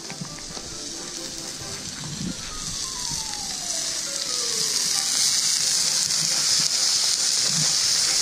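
Wood fire burning in a metal fire pit, crackling and hissing, growing louder through the first half. A single falling whistle-like tone sounds a few seconds in.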